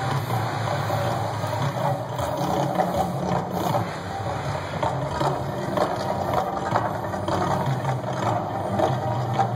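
Mirage volcano show erupting: a steady low drone from its soundtrack under repeated sudden bursts from the gas fire jets and lagoon fountains.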